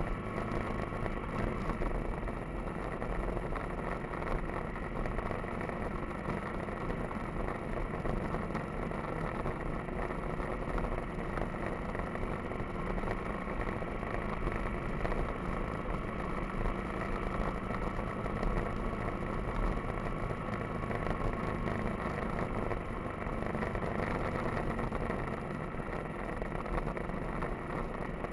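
Motorcycle engine running steadily while riding, mixed with wind and road noise on the bike-mounted microphone.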